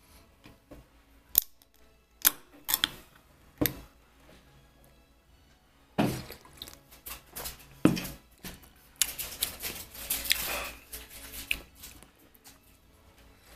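Close handling noises: a few sharp taps and clicks in the first four seconds, then several seconds of scuffing and rustling.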